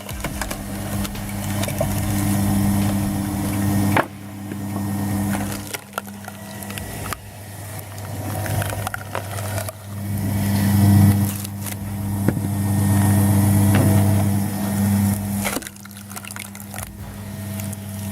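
Electric 220-volt screw wood splitter running with a steady motor hum while its cone bores into logs, the wood cracking and splintering apart.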